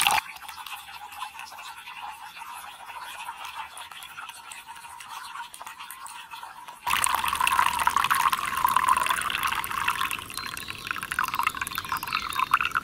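Hot pine needle tea being strained from a small camping pot through its lid into a mug: liquid trickling and splashing into the cup. It gets suddenly louder and fuller about seven seconds in.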